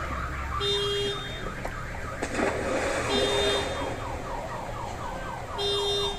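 Electronic siren: quick falling wails repeating about four times a second, with a short steady beep roughly every two and a half seconds.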